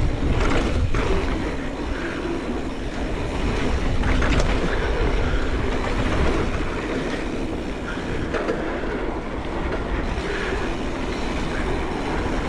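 Mountain bike rolling down a dirt trail: steady tyre roar and rattle of the bike over rough ground, with a few sharp knocks from bumps, and wind on the microphone.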